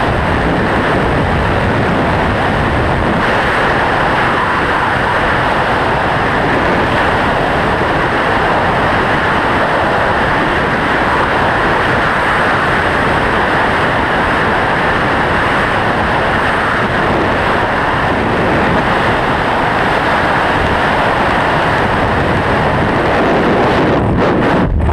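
Freefall wind blasting across a hand-held camera's microphone during a tandem skydive: a loud, steady roar of noise, thinning in the top end near the end.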